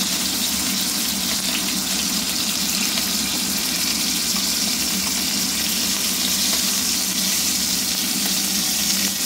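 Oil sizzling steadily around a whole tilapia frying in a little oil in a nonstick pan, with a steady low hum underneath.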